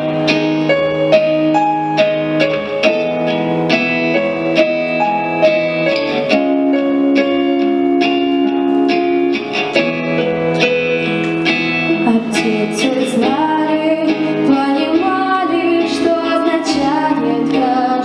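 A girl singing a song into a microphone over a recorded backing track with picked, guitar-like notes.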